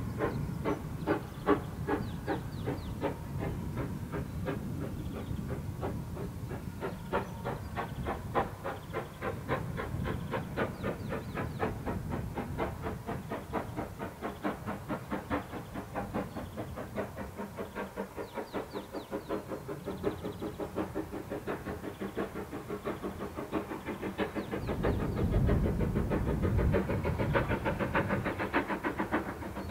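GWR Small Prairie 2-6-2 tank engine No. 4555 working steam, its exhaust beats coming in an even rhythm of several a second. A louder low rumble swells in for a few seconds near the end.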